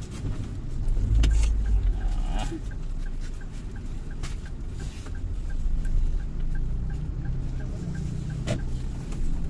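A car being driven, heard from inside the cabin: a steady low engine and road rumble with a few knocks, and from a couple of seconds in a quick, regular light ticking.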